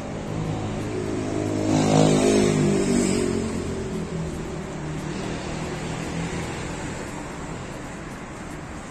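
Street traffic, with a motor vehicle passing close by: its engine swells to the loudest point about two seconds in, then fades back into the steady traffic noise.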